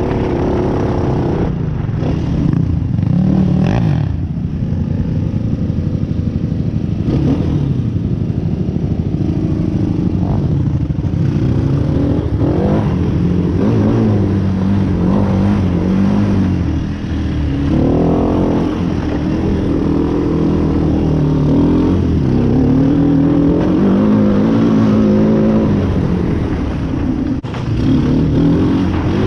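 Off-road vehicle engine running under load on a trail, its pitch rising and falling repeatedly as the throttle is opened and eased off.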